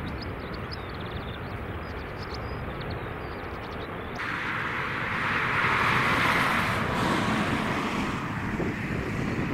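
Airbus A380 jet engines as the airliner rolls out along the runway after landing: a steady rumble with hiss that turns abruptly louder about four seconds in, is loudest around six seconds and then eases off. A few faint bird chirps near the start.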